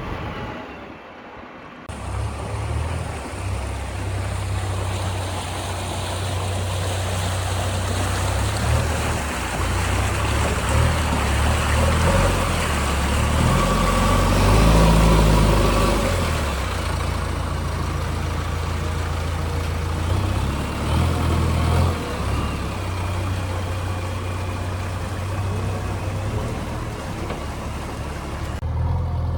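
JCB backhoe loader's diesel engine running steadily. It swells louder for a couple of seconds around the middle as it is worked harder, then settles back.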